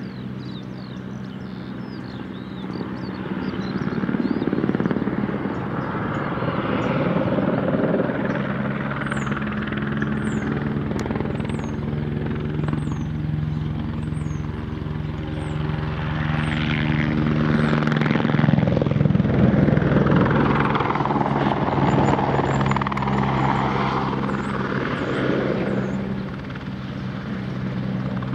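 Eurocopter AS350 single-turbine helicopter making low spraying passes: a steady rotor beat and turbine sound that swells louder as it sweeps close, twice, most strongly about two-thirds of the way through.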